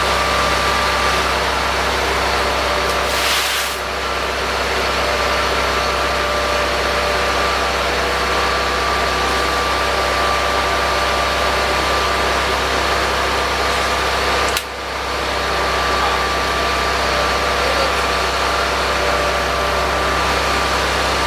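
Garden tractor engine running steadily at idle, with a steady whine over the engine note. The level dips briefly twice, about three and a half and fourteen and a half seconds in.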